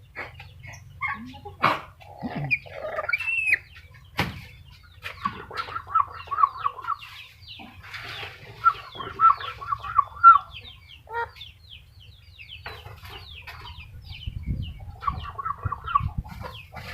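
Black-capped lory calling: several quick runs of clucking chatter, each about a second and a half long, among many short squeaky chirps and a few sharp clicks.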